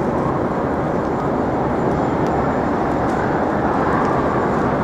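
Steady, loud city street noise: a continuous low rumble of traffic, with a faint wavering tone rising near the end.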